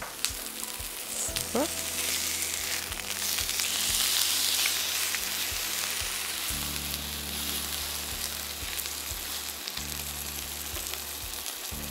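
Beef striploin steaks sizzling as they sear in hot rapeseed oil in a frying pan, with rosemary in the pan. The sizzle swells louder a few seconds in.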